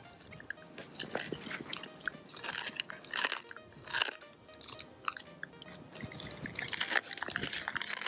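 A dog chewing a raw duck neck, crunching through the thick cartilage in irregular bites, with background music underneath.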